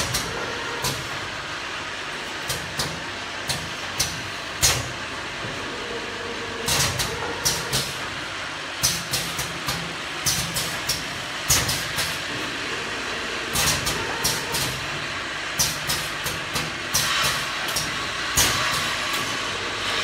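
Automatic piston filling and capping line running: a steady machine hum under irregular sharp clicks and clacks from the mechanism and the glass bottles on the conveyor, coming more often in the second half.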